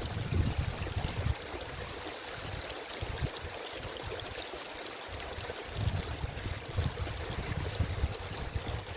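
Babbling brook and small waterfall running steadily, with gusts of wind buffeting the microphone at the start and again from about six seconds in.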